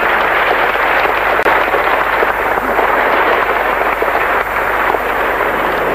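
Steady, loud hiss and crackle from a worn videotape soundtrack, with a brief dropout about a second and a half in.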